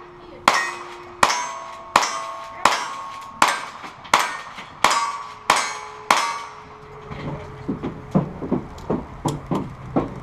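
A string of about nine gunshots, roughly three-quarters of a second apart. Each is followed by the clang of a hit on a steel target, which rings briefly. From about seven seconds in, the shots stop and quicker, lighter knocks and clatter follow.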